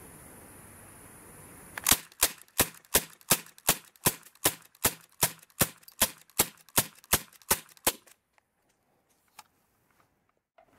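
A pistol fired rapidly about sixteen times, roughly three shots a second, each shot a sharp crack. After the string the sound drops almost to silence.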